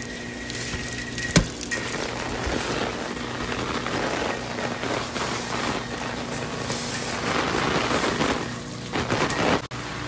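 Artificial rain from a bird reserve's rain system falling on an open fabric umbrella and stone paving: a steady noise of falling water that swells and eases. One sharp click sounds about a second and a half in.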